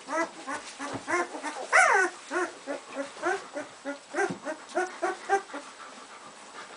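Two-week-old liver-coloured puppies whimpering and squeaking in a quick run of short cries, about three or four a second, with one longer, louder cry falling in pitch about two seconds in. The cries die away near the end.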